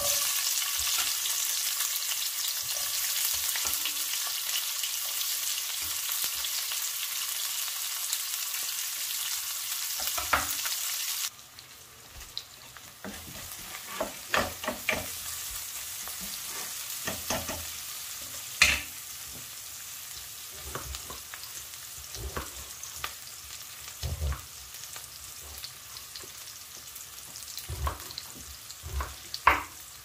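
Sliced onions sizzling loudly as they hit hot oil in a frying pan. About eleven seconds in, the sizzle drops suddenly to a quieter, steady frying, with scattered taps and scrapes of a spatula stirring the onions.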